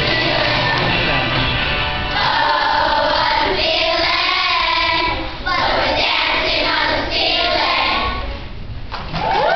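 Children's glee club choir singing together with electric-guitar backing; the level drops briefly near the end as a phrase closes.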